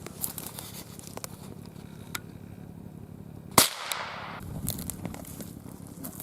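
A single gunshot about three and a half seconds in, followed by a short echo dying away. Faint crackles of brush or footsteps sound around it.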